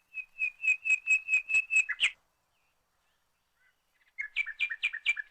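A songbird singing two phrases of rapid, clear, repeated whistled notes, about four a second. The first phrase ends about two seconds in with a short lower flourish, and the second starts about four seconds in.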